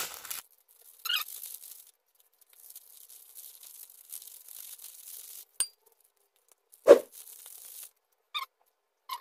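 Foil seasoning sachets for instant mi goreng being torn open and crinkled between the fingers, with a soft hissing rustle as the seasoning is squeezed out. A few small clicks and one sharper knock, the loudest sound, come about seven seconds in.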